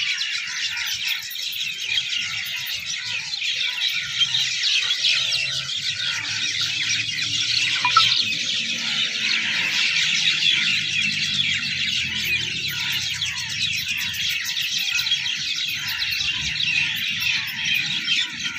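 Many birds calling at once in a dense, continuous chorus of overlapping high calls.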